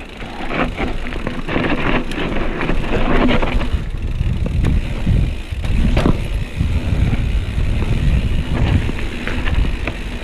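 Mountain bike rolling over a rough trail: a steady rumble of tyres on the ground, broken by sharp knocks and rattles from the bike, the sharpest about six seconds in.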